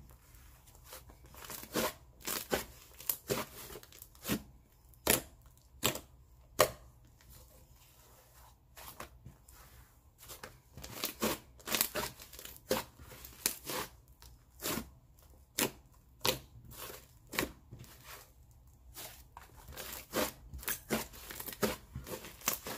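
Soft, inflated clay slime being pressed and stretched by hand: a string of sharp pops and clicks as trapped air pockets burst, coming in irregular flurries of a few a second with short lulls between.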